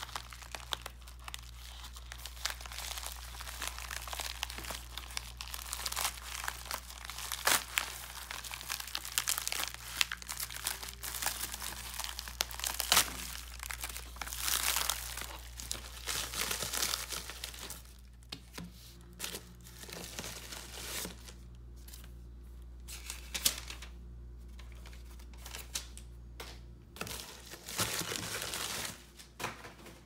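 Hands tearing open and crinkling a padded bubble mailer: a dense crackling rustle with sharp tearing strokes, thinning after about eighteen seconds to a few scattered rustles and taps.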